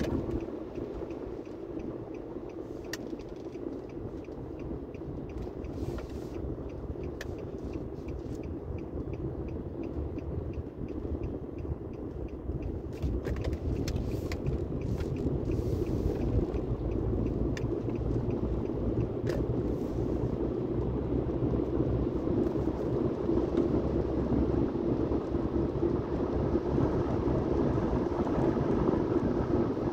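Car interior noise while driving on a wet road: a steady low rumble of engine and tyres that gradually grows louder, with a few faint ticks scattered through it.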